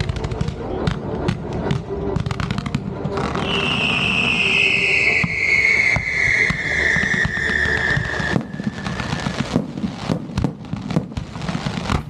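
Fireworks going off: rapid pops and crackles of low firework comets and fountains. A long whistle falling slowly in pitch starts about three seconds in and fades out after the middle.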